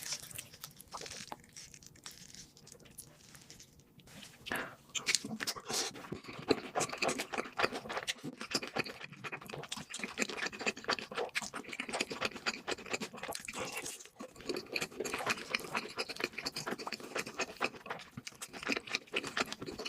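Close-miked crunchy chewing of fried food, a dense run of crackling bites and chews starting about four and a half seconds in, with faint rustles before it.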